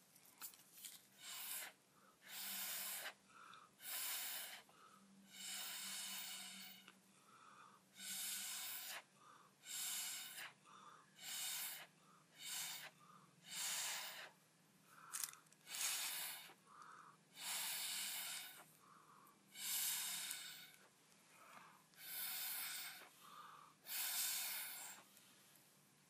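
Repeated puffs of breath blown through a plastic drinking straw onto wet acrylic paint: a long series of short, hissy blows, about one a second, each stopping abruptly.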